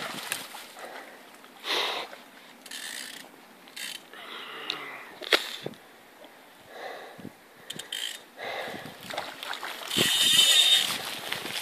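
Fly reel's click-and-pawl ratchet buzzing in short, irregular spells as a hooked salmon is played, the longest and loudest spell about ten seconds in.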